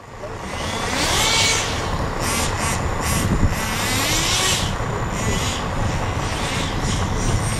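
A coach's engine running with a steady low hum, while a group of people talk and call out around it.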